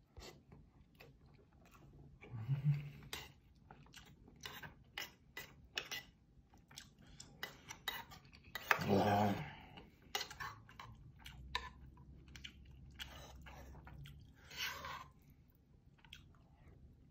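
Close-up chewing and mouth clicks of a person eating rice and kimchi stew, with a metal spoon clinking against a metal bowl. A louder voiced sound comes about nine seconds in.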